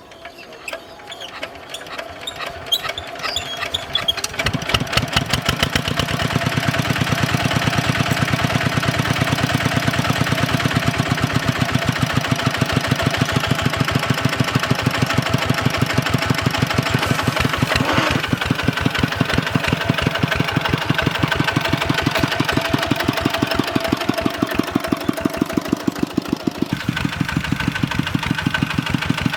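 A walking tractor's diesel engine chugs with a rapid, even beat. It grows louder over the first few seconds, then runs steadily, and its note changes and eases off a little near the end.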